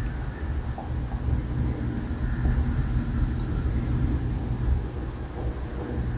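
Steady low hum and whir of the small electric motors and gear drives inside several Telco motionette Christmas figures as they move.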